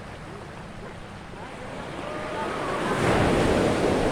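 Ocean surf: a wave builds up and breaks loudly about three seconds in, its wash running on afterwards.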